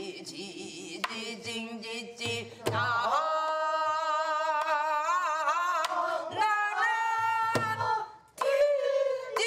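A woman's voice in Korean traditional singing style, holding long notes with a wide, wavering vibrato, with a short break near the end. A few low thuds sound under the singing.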